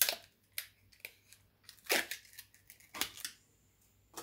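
Packaging of a scented wax bar being handled and opened: a handful of short crackles and clicks, the loudest at the start and about two seconds in.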